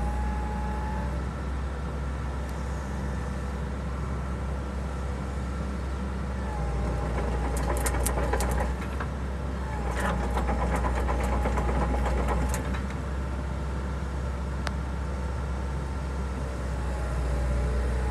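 Hitachi EX120 tracked excavator's diesel engine running steadily while the machine works. It grows louder twice, about seven and ten seconds in, with bursts of metallic clicking and clanking.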